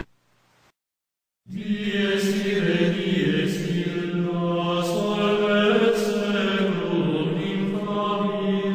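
Religious chanting by voices over a steady held low note, with a slowly moving melody above it. It starts about a second and a half in, after a brief silence.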